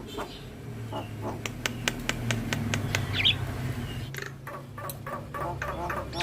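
Javan myna (jalak kebo) calling: a quick run of sharp clicking notes and a short squawk-like whistle, over a low steady hum.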